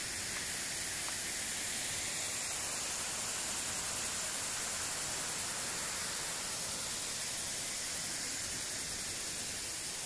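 Sedudo waterfall plunging down a tall cliff, heard as a steady, even rush of falling water.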